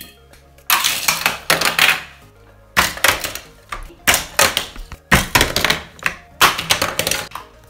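Plastic clattering and knocking of Hot Wheels die-cast toy cars and plastic track pieces being handled, in five bursts of about a second each, over soft background music.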